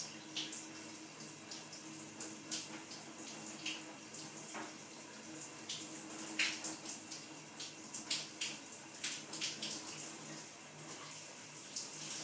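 Paper pages of a picture book being handled and turned by a small child: many short, soft rustles and page flicks, over a faint steady hum.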